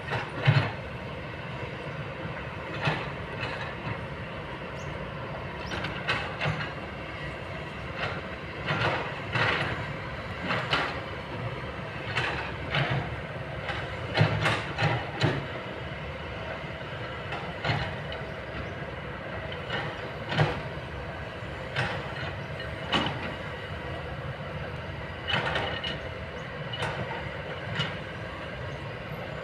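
Kobelco long-boom excavator's diesel engine running steadily, with frequent irregular sharp metallic clanks and knocks from the working machine.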